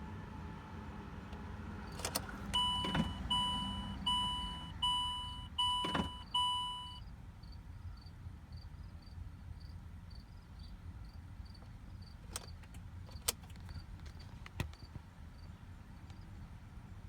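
A 2012 Land Rover's dashboard warning chime dings six times in quick succession, as the car shows an HDC fault and will not start. Sharp clicks come before and after the chimes, and a faint, rapid ticking follows them.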